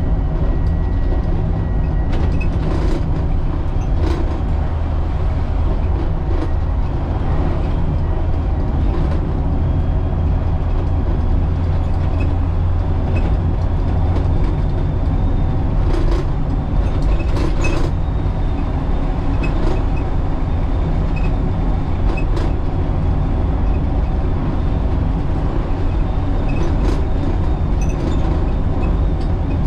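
Wrightbus StreetDeck double-decker bus on the move, its Daimler OM936 7.7-litre six-cylinder diesel engine running steadily under a deep, even rumble. Short clicks and rattles come every few seconds.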